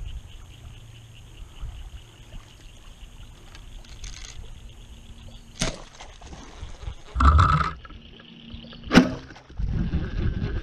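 A bowfishing bow is shot at a carp: a sharp snap of the string and the arrow and line hitting the water, among a few knocks and a short loud burst in the second half, with water splashing near the end. Steady wind noise on the microphone underneath.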